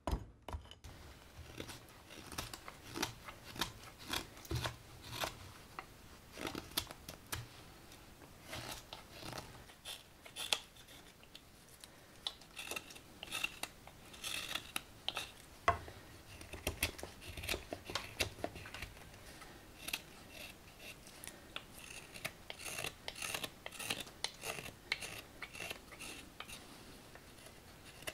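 Sloyd carving knife paring shavings from a green walnut ladle: an uneven run of short, crisp slicing cuts, a few each second. A last hatchet blow on the chopping block sounds at the very start.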